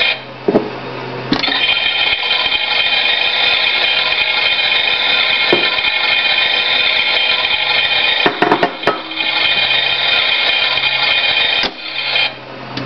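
Toy Miele washing machine's small electric motor turning the drum at the start of a wash, a steady whine that stops and restarts about a second in, again around 8 seconds in, and stops near the end, with a few knocks around the pauses.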